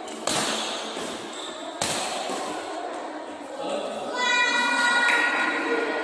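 Two sharp racket strikes on a shuttlecock, about a second and a half apart, echoing in a large hall. About four seconds in, a loud, steady high-pitched tone starts and holds for about two seconds.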